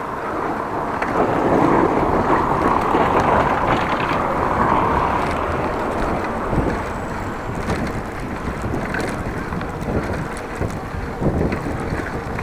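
Wind rushing over an action camera's microphone while riding a bicycle: a steady noisy rush with no clear tones, a little louder for a few seconds about a second in.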